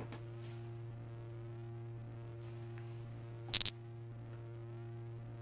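Three quick sharp clicks about three and a half seconds in, as the catch of a locked box is tried, over a steady low hum.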